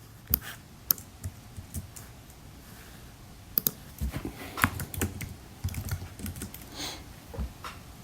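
Typing on a computer keyboard: irregular key clicks in short runs, with more of them in the second half.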